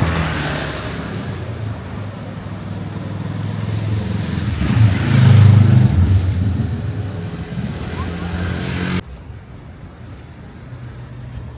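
A motor vehicle's engine running close by, growing louder to a peak about five seconds in and then easing off. The sound drops away suddenly about nine seconds in, leaving quieter street noise.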